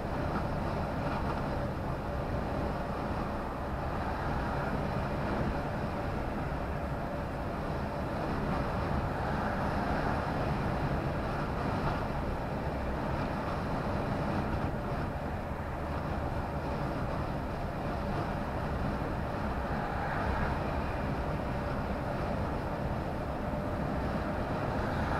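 Steady drone of a lorry's engine and tyre road noise heard from inside the cab while cruising at motorway speed, with a faint steady whine over the rumble.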